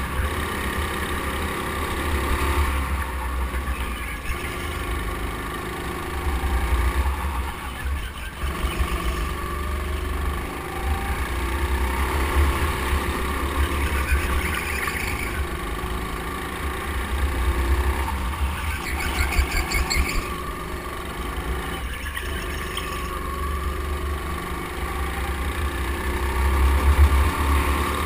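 Go-kart running around the track, heard from a camera mounted on the kart: a steady, loud low rumble with a constant tone above it. There are a few short rasping patches around the middle.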